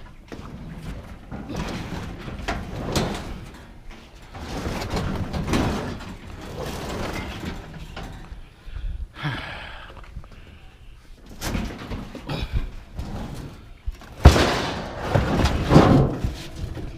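A discarded metal kitchen stove being dragged and shoved into a vehicle for scrap: repeated sheet-metal scraping and scuffing with knocks, and one loud bang late on.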